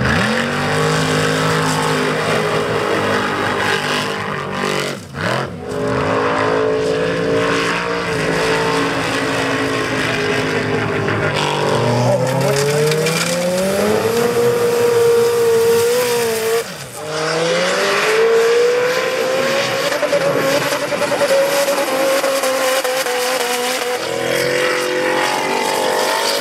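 Formula Offroad race buggy engines revving hard as the buggies launch and race through mud and water, the pitch climbing and falling with the throttle. The sound breaks off briefly twice as one run gives way to the next.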